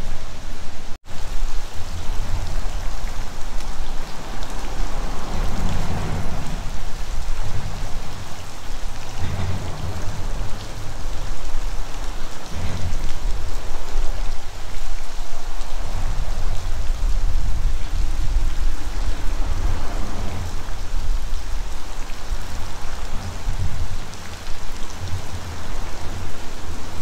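Freezing rain falling in a steady hiss and patter, over a heavy low rumble that swells and fades. The sound cuts out for an instant about a second in.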